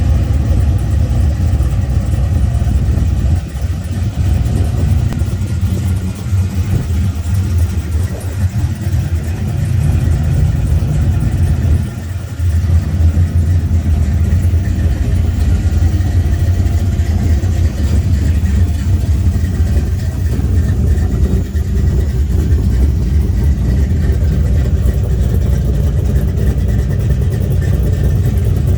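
Pontiac Trans Am V8 engine and exhaust running loudly with a deep, steady rumble, dipping briefly a few times.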